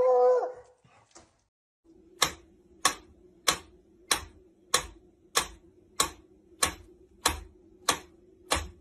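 A mechanical pendulum metronome ticking steadily, about one sharp tick every 0.6 seconds, starting about two seconds in. At the very start, a dog gives a short whine.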